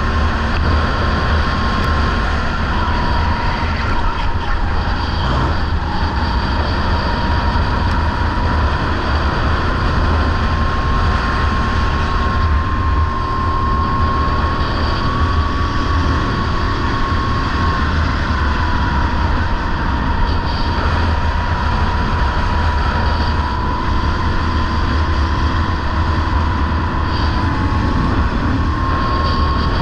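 Sodi rental go-kart running at speed, recorded onboard: a steady drive sound with a thin whine that slowly rises and falls through the lap, under heavy low wind rumble on the camera's microphone.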